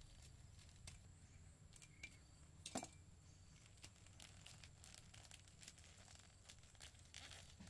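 Near silence with faint scattered crackles and ticks, and one sharper click a little under three seconds in.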